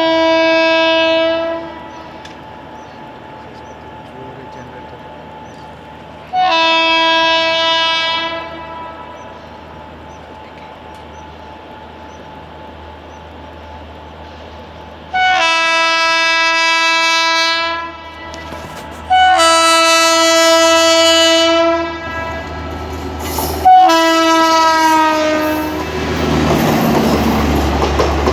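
WAP-7 electric locomotive sounding its horn in five long blasts, the last one dropping in pitch as the engine passes. It is followed by the loud rush and clickety-clack of the express train's coaches going by.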